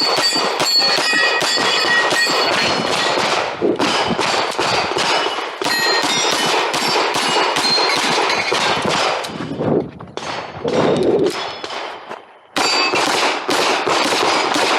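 Rapid pistol fire at steel knockdown plates. The shots come in fast strings with short ringing tones from hit steel, with brief pauses about four, ten and twelve seconds in.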